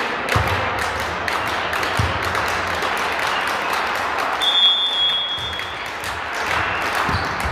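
Crowd applauding and clapping, with a few dull thumps and a brief high steady tone a little past halfway.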